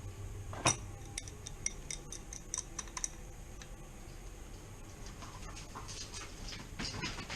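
Light metallic clicks and taps of tools and metal parts being handled. One sharper knock comes about a second in, then a quick run of small clicks, and softer clicking again near the end.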